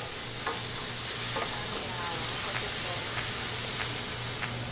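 Vegetables sizzling steadily as they are stir-fried in a steaming frying pan on a gas stove, with a wooden spatula knocking and scraping the pan now and then.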